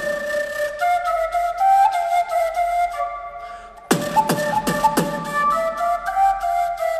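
Background music: a flute melody over steady light percussion, with a few deep drum hits falling in pitch about four to five seconds in.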